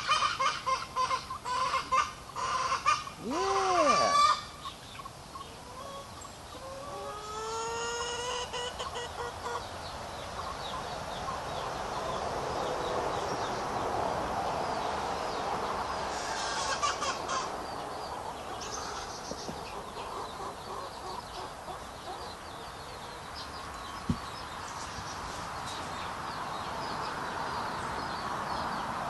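Domestic chickens clucking, with a rooster crowing once about seven seconds in, followed by a steady background of clucking. One sharp click late on.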